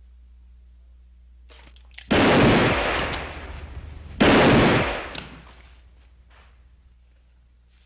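Two revolver shots about two seconds apart, each loud and sudden with a long echoing tail that dies away over about a second.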